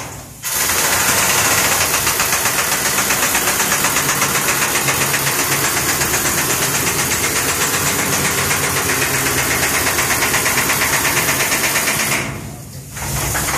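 Loud machinery running steadily with a rapid, even pulse of about six beats a second. It starts about half a second in and cuts off suddenly near the end.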